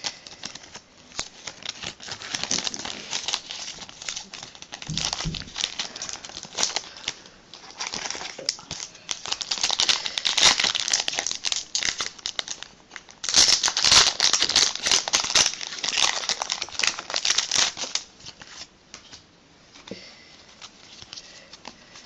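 Foil booster-pack wrappers crinkling and tearing as Pokémon card packs are ripped open and handled, a dense crackle that eases off to quieter handling about eighteen seconds in.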